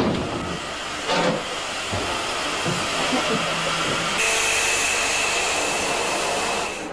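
Steam locomotive hissing steam, with a metallic clank about a second in. About four seconds in, a louder, steady hiss with a high whistling note starts.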